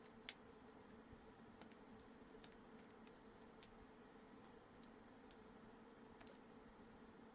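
Near silence: a low steady hum with faint, irregular small clicks scattered throughout.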